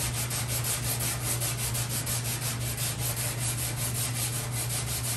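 Sanding on the sheet-metal door jamb of a Chevrolet C10 pickup cab: steady abrasive scrubbing in a fast, even rhythm over a low steady hum.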